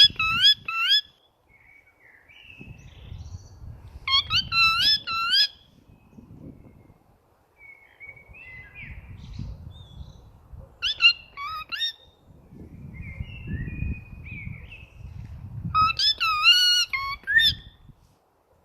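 Bird calls traded back and forth, a person mimicking birds and birds calling back: four loud bursts of quick rising-and-falling whistled notes, with fainter short chirps between them. A low rumble runs underneath.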